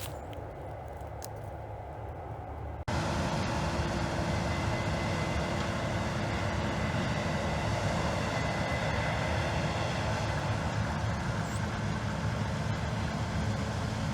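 Heavy farm harvest machinery running steadily, its engine drone carrying a few steady whining tones. It starts abruptly about three seconds in, after a quieter stretch of outdoor background.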